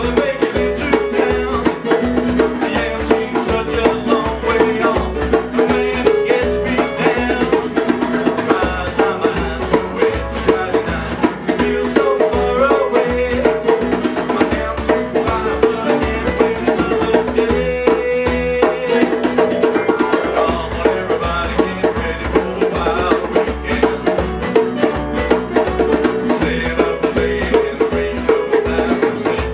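Acoustic band playing a rock and roll song unplugged: strummed acoustic guitars over percussion keeping a fast, steady beat, with a short break in the rhythm a little past halfway.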